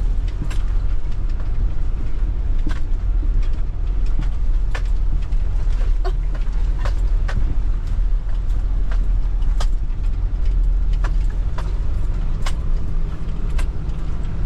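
Four-wheel-drive truck engine running steadily under load on a rough, boggy river crossing. Sharp knocks and rattles come every second or so as the vehicle and its load jolt over the rough bed.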